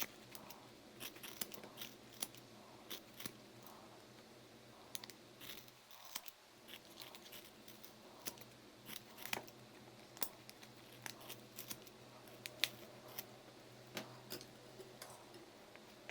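Scissors snipping through a soft foam squishy, giving a string of crisp, irregular snips and clicks, one sharper than the rest near the end, over a faint steady hum.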